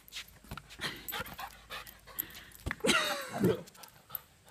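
A dog panting and whimpering as it leaps to bat at a balloon, with scattered sharp taps and a louder wavering cry about three seconds in.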